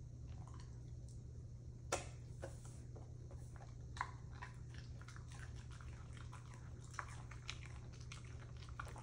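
Dogs chewing and mouthing arugula leaves off plates: scattered soft wet clicks and crunches, the sharpest about two and four seconds in, over a steady low hum.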